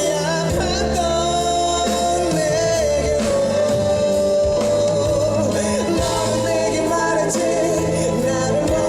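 Live concert music: a band playing with singing, carried on long held notes.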